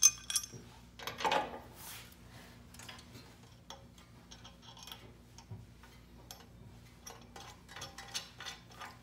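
Metal clinks of a steel hitch bracket and bolts being handled against a mower's rear plate, a short scrape about a second in, then scattered light metallic ticks as the bolts are worked in.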